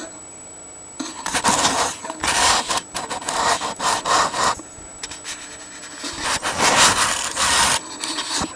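Loud, irregular rubbing and scraping in a run of short bursts, starting about a second in and stopping shortly before the end.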